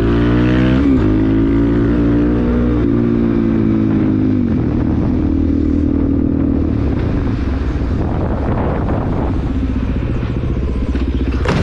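Dirt bike engine running under way, its pitch sliding and jumping several times in the first few seconds and then steadier, with wind rush on the microphone. A sudden loud bang near the end, the collision that puts the bike down beside a pickup truck.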